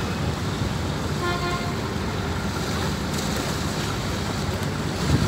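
Steady low rumble of a passenger ferry under way, engine and wind noise together, with a brief faint horn toot about a second in.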